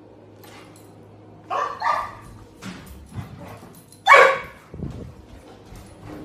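A dog barking: a quick pair of barks about a second and a half in, then a single louder bark about four seconds in.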